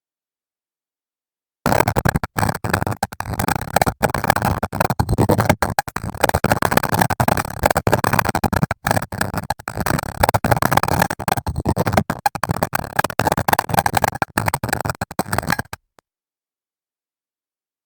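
An AI-generated weird noise played back from the KinLab sound generator: a dense, choppy, gritty texture full of tiny breaks, starting suddenly about a second and a half in and cutting off abruptly near the end.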